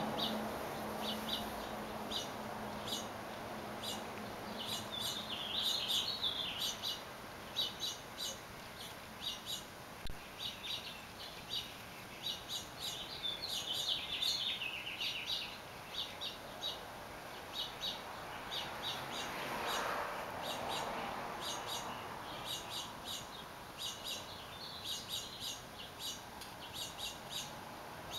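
Small birds chirping over and over in short high notes, with a longer warbling run of song about five seconds in and again around fourteen seconds.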